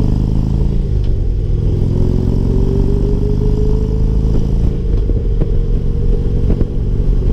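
Harley-Davidson Ultra Limited touring motorcycle riding at road speed, its V-twin running under a singing whine that rises in pitch about two seconds in and then holds steady. The rider takes the whine for worn front wheel bearings.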